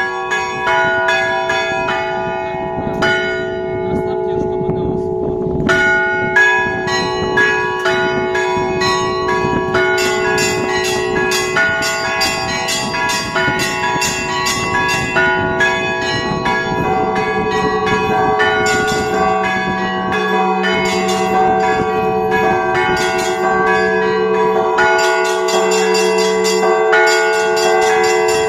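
Orthodox church bells played by a bell ringer in a festive Easter peal: small high bells struck in quick, dense rhythm over the sustained ringing of larger bells. A deeper bell joins about two-thirds of the way in.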